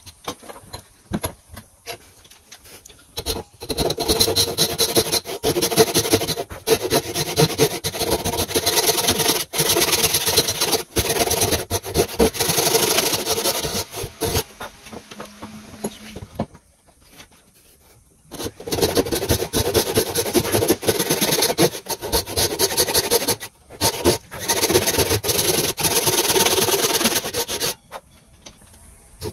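Western steel handsaw ripping kerfs lengthwise down into the end grain of a eucalyptus hardwood post, in fast back-and-forth strokes. The sawing stops for about two seconds midway and again shortly before the end.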